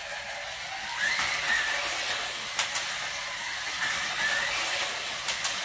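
Two Carrera GO! 1:43-scale slot cars racing on a plastic track, their small electric motors making a steady whir with a faint whine that rises and falls as they speed up and slow for the curves. Sharp clicks come in two quick pairs, about midway and near the end.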